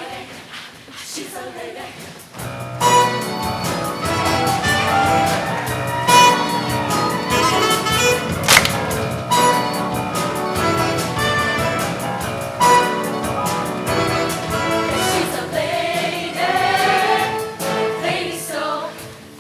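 Show choir singing with a live band; the music is thin and quieter at first, and the full band and choir come in about three seconds in.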